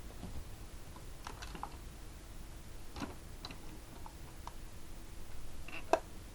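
Light, irregular clicks and taps of a small diecast model car being handled, a few at a time, with the sharpest click near the end.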